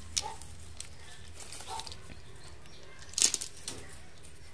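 A hand rustling through dry leaf litter and picking up land snails, with scattered rustles and clicks of shells; the loudest about three seconds in.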